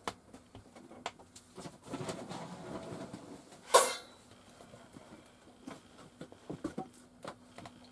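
Dry dog kibble rattling and crunching: scattered small clicks, a stretch of soft rattling, and one louder clatter about four seconds in.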